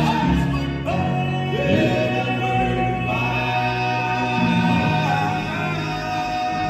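Male southern gospel vocal group singing live in close harmony with musical backing, one voice holding a long high note from about a second in to the end.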